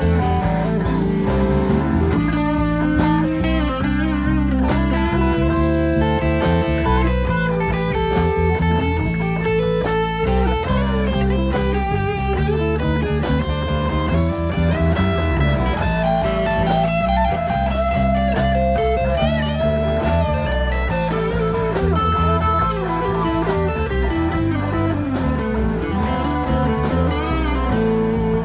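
Blues-rock band playing an instrumental break: an electric guitar solo with bent notes over bass, rhythm and drums.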